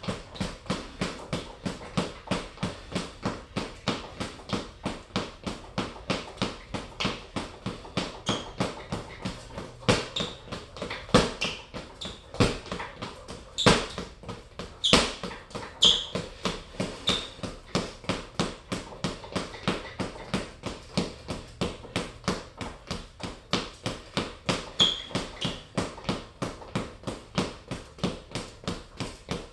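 Boxing gloves hitting an Everlast heavy bag in a steady rapid run of punches, about three a second, with a handful of harder shots around the middle.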